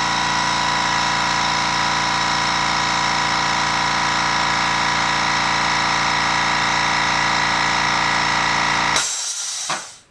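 Makita portable electric air compressor running steadily as it fills its tank. About nine seconds in the motor shuts off, reaching cut-out pressure, and a brief hiss of released air follows before it goes quiet.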